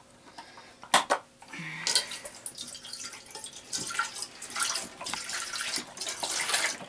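Pineapple juice poured from a carton into an empty enamel pot: a steady splashing stream starts about two seconds in, after a sharp click near one second.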